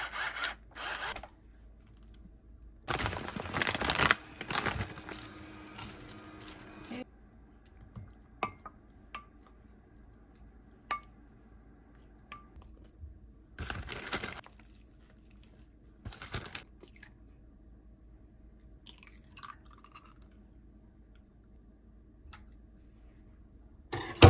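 Kitchen prep sounds: a hand pepper mill grinding in short crunching bursts, then scattered light knocks and scraping as a wooden spatula moves tomato sauce from one dish into a baking dish.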